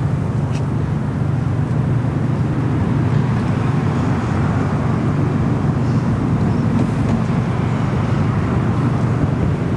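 A steady low mechanical hum and rumble, even in level with no distinct events.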